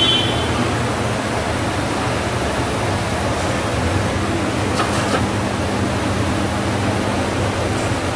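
Snack vending machine dispensing under a steady rushing noise: a short high beep at the very start, a low hum through the second half, and a brief clatter about five seconds in, as the first item is vended.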